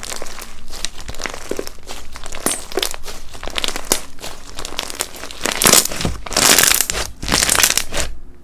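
Slime being squeezed, stretched and pressed by hand, giving a dense, continuous crackling and crinkling. It comes in louder surges in the second half and stops just before the end.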